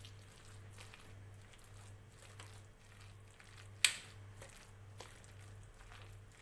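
Spoon stirring thick besan batter and chopped vegetables in a glass bowl: soft, irregular squelching strokes, with one sharp knock of the spoon against the bowl a little under four seconds in.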